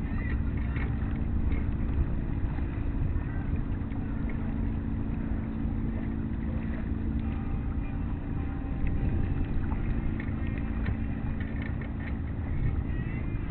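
A boat engine running at a steady speed, holding an even low hum, over a low rumble of wind on the microphone.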